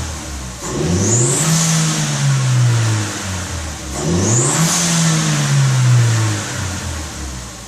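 2012 Chevrolet Cruze Eco's 1.4-litre turbocharged four-cylinder with a K&N cold air intake, revved twice. Each time the pitch climbs quickly with a high, airy intake whoosh, then sinks slowly back down, settling toward idle near the end.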